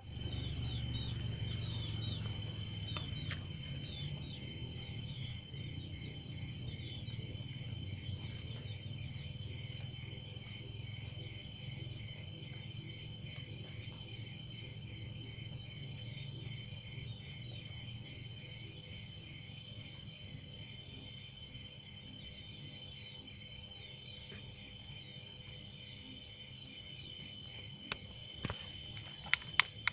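Insects trilling steadily in several high, evenly pulsing layers that do not pause. Near the end there are a few sharp clicks.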